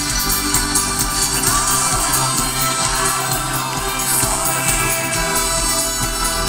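Live folk-rock band playing loudly with singing, with acoustic guitars, upright bass and drums in a fast, driving rhythm, recorded from within the stadium crowd.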